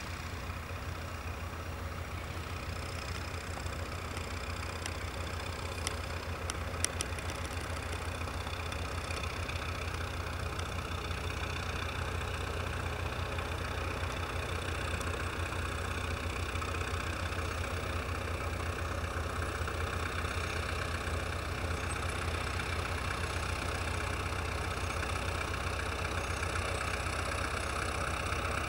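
Farm tractor diesel engines running steadily under working load as the tractors pull field implements, with a low hum that grows slightly louder over the stretch. A couple of brief clicks sound about seven seconds in.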